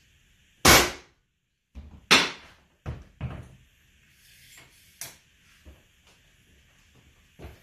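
Pneumatic hardwood flooring nailer struck with a mallet and firing nails into the floorboards: two loud shots about a second and a half apart, then a couple of medium knocks and a few lighter ones.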